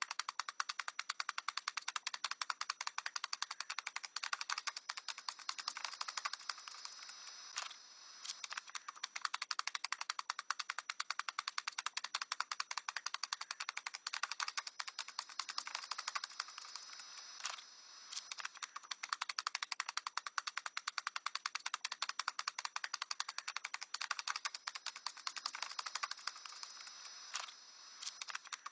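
A parrot tapping in quick, even runs of sharp clicks, the 'tap dancing', pausing briefly a few times between runs.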